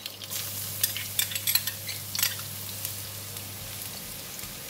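Chopped garlic sizzling in hot cooking oil in a wok alongside frying ginger slices, the hiss picking up as the garlic goes in. A few sharp clicks come in the first couple of seconds, and the sizzle then settles to a steady hiss.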